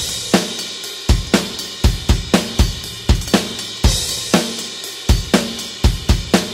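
A rock drum kit playing a steady beat at 120 bpm, with kick drum, snare and cymbals, and no other instruments.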